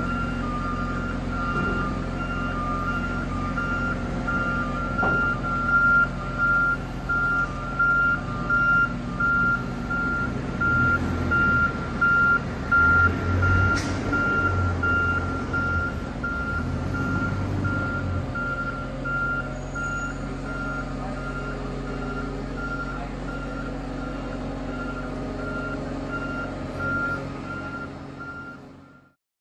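Marine Travelift boat hoist driving with a sailboat in its slings: its diesel engine runs steadily while its travel alarm beeps over and over. The sound fades out near the end.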